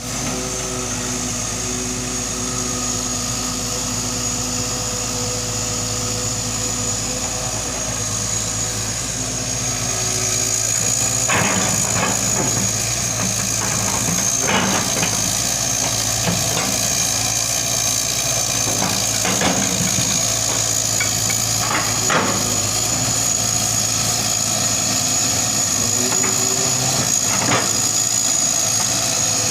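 Hitachi excavator's diesel engine running steadily, with a constant high whine above it. About a third of the way in the engine gets louder and metallic clanks start, a few seconds apart, as the machine works.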